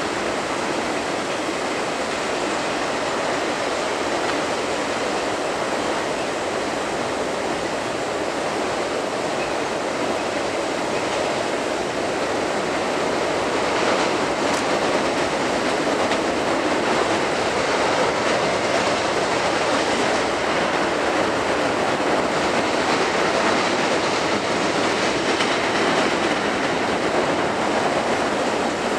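Intermodal freight cars, container-carrying well cars and trailer flats, rolling steadily across a steel truss bridge overhead. The noise is continuous and grows slightly louder about halfway through, when faint repeated wheel clicks join it.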